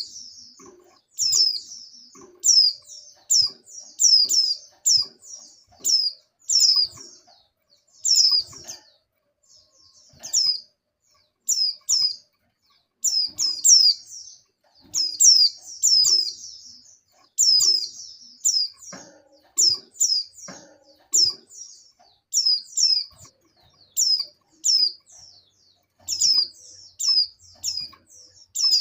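Female white-eye (pleci) in breeding condition calling to attract males: short, high chirps that sweep downward, given in quick clusters of two to four and repeated about every second.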